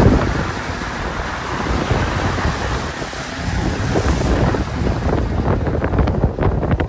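Wind buffeting the microphone over an off-road vehicle driving through a shallow sandy creek bed, a steady rushing noise. From about five seconds in, a scatter of sharp crackling clicks from the tyres rolling over gravel.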